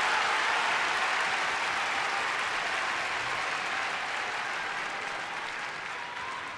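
Large arena audience applauding, the applause slowly dying away.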